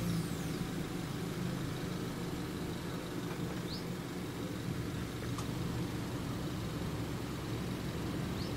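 A steady low engine hum, typical of a vehicle idling or running at a level crossing while the barriers are down. Two faint short high chirps sound over it, one in the middle and one near the end.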